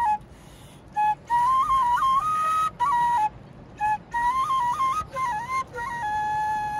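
Background music: a solo flute plays a melody in short phrases with brief gaps, then settles into one long held note near the end.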